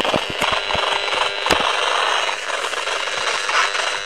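EMFields Acousticom 2 RF detector's speaker giving a steady noisy buzz, with several clicks in the first second and a sharper one about one and a half seconds in. The sound is the meter's audio rendering of the radio-frequency signals it is picking up, which the owner takes for a directed-energy beam.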